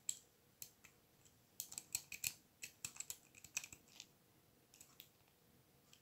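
Snake rake being worked in and out of a four-pin padlock's keyway under medium tension from a tension wrench, giving a run of faint, irregular metallic clicks as the pins are raked, thickest in the middle.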